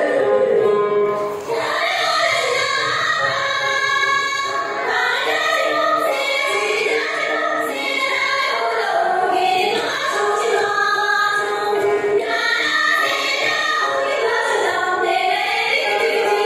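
A group of voices singing a Tibetan folk song together, accompanied by dranyen, the long-necked Tibetan lute.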